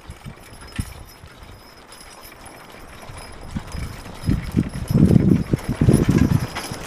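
Horse hooves clip-clopping. A few scattered knocks at first, then from about four seconds in a fast run of loud, low hoof thuds that builds toward the end.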